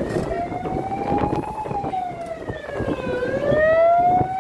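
A wailing siren, its pitch sliding slowly up and down in long sweeps, low about three seconds in and rising again near the end, where it is loudest, over the rumble of road traffic.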